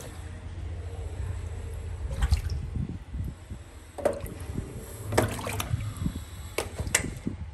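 Water splashing and dripping in a shallow pond as a plastic bottle is dunked and swished beside a young crocodile whose tail stirs the water: a few short splashes over a steady low rumble.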